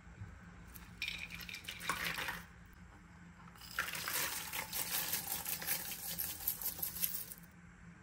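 Chopped walnuts poured from a small glass bowl into a wooden bowl, a short rattle of small pieces landing about a second in. Then a longer pour of mixed seeds, nuts and raisins, a dense trickle of tiny pieces hitting the bowl and the wet mixture for about three and a half seconds.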